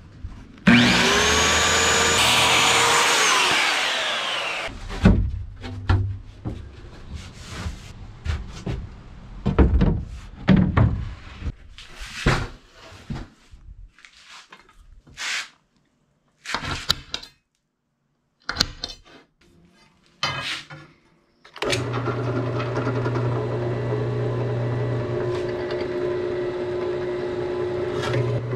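A handheld circular saw spins up and cuts plywood for about three seconds, then winds down. Then come scattered knocks and clatter of boards and tools being handled. In the last third a benchtop drill press motor runs steadily.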